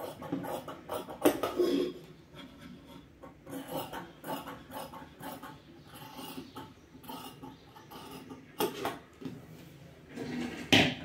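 Tailor's shears cutting through fabric on a table, the metal blades clicking in irregular snips, with a sharper clack about a second in and another near the end.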